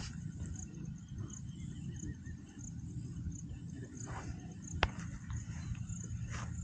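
Quiet outdoor background: a steady low rumble with a faint high-pitched chirp repeating about every half second, and a single click about five seconds in.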